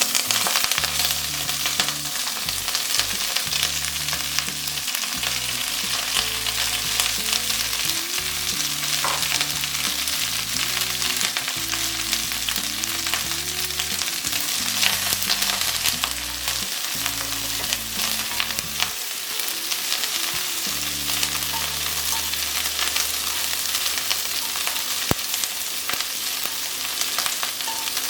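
Fresh curry leaves frying in hot gingelly (sesame) oil with red chillies, a dense crackling sizzle that breaks out suddenly as the leaves hit the oil and then holds steady.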